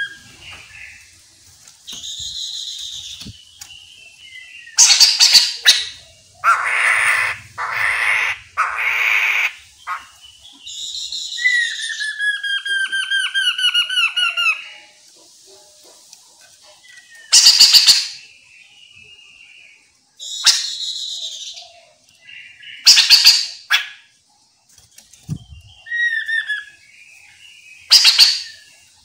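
Chestnut-capped laughingthrushes calling loudly in separate phrases: harsh, rasping chatter bursts alternate with a rapid run of falling whistled notes.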